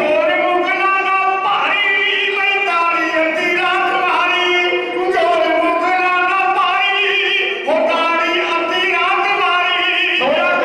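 Sikh devotional singing: a voice holding long, wavering notes, phrase after phrase, with short breaths between them.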